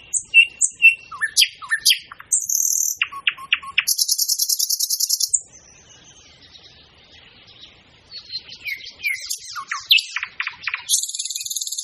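Several songbirds chirping and singing: short whistled notes, quick downward chirps and fast rattling trills. There is a lull of about two seconds in the middle.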